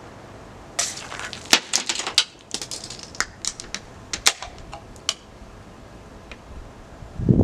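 An aluminium soda can is stabbed and worked open with a knife for shotgunning: a quick run of sharp metallic clicks and crinkling cracks, with short fizzy hisses of escaping carbonation. It stops about five seconds in. A louder, lower sound begins right at the end.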